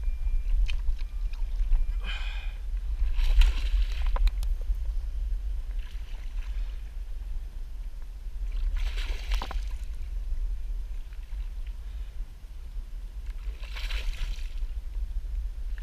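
A hooked bass thrashing and splashing at the surface during the fight, in three short splashes about four to five seconds apart, over a steady low rumble.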